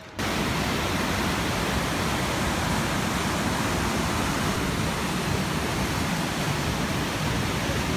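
Steady, loud rush of the Merced River's whitewater rapids tumbling over granite boulders below the Vernal Fall footbridge.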